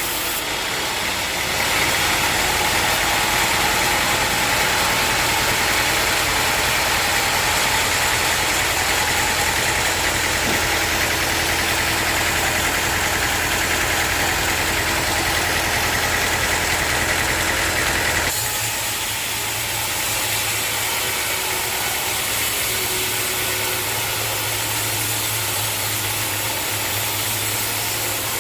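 Sawmill machinery running steadily. It gets louder and brighter about two seconds in, then drops back to a lower, steady running sound about eighteen seconds in.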